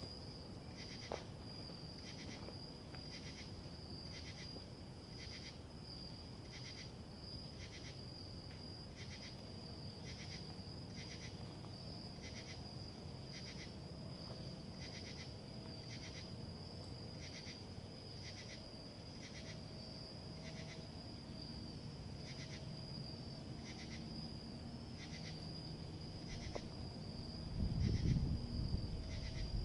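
Night insects calling: a steady high-pitched trill with a pulsing call repeating about once a second. Near the end a louder, low rustling noise rises briefly over it.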